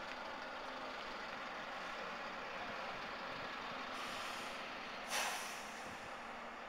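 Steady street traffic noise. About five seconds in, a heavy vehicle's air brakes give a short, sharp hiss, the loudest sound here, with a fainter high hiss just before it.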